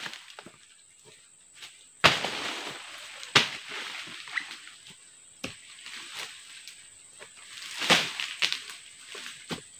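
Cut oil palm fronds being handled and struck: a few sudden sharp strikes, the loudest about two seconds in and again near eight seconds, each trailing into a second or so of crackling rustle.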